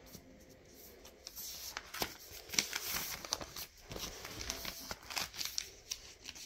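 Paper and bedding rustling and crinkling as they are handled close to a phone's microphone: irregular soft rustles and small clicks.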